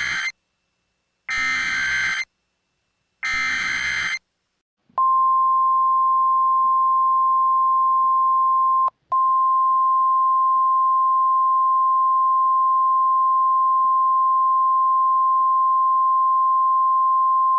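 Emergency Alert System SAME header data bursts, three harsh buzzy bursts about a second apart, the first already under way. About a second after the last one, the single steady NOAA Weather Radio warning alarm tone begins and holds for about thirteen seconds, with a very short dropout about four seconds in. The tone is the attention signal that a weather warning message is about to follow.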